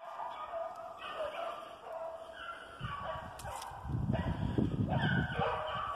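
A pack of rabbit hounds baying in full cry, several voices overlapping, as they run a rabbit. A low rumble of microphone noise joins in from about three to five seconds in.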